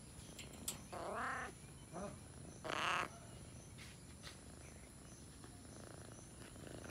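A cat meowing three times: a call about a second in, a short one around two seconds, and a louder, longer one just before three seconds, each rising and falling in pitch.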